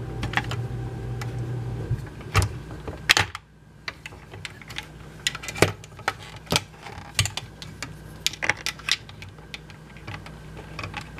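Hard plastic toy parts clicking and tapping irregularly as a small Hiro figure is handled and fitted onto the back of a large plastic Baymax figure.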